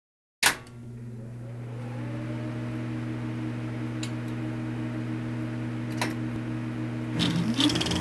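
A sharp click, then a motor starting up and running with a steady hum; faint clicks sound about four and six seconds in, and near the end the hum changes and a tone sweeps upward.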